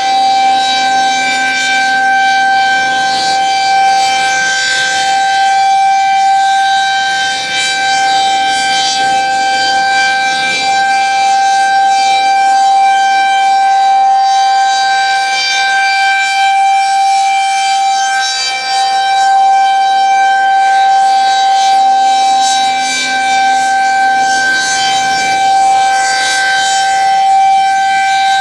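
Federal Signal 2001-SRNB rotating electromechanical warning siren sounding a steady tone during a test. The pitch holds level while its brightness slowly swells and fades as it turns.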